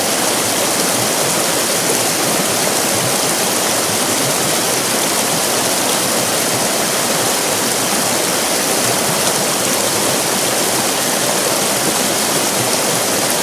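River rapids: fast-flowing water rushing and splashing in a steady, even roar-like hiss with no pauses.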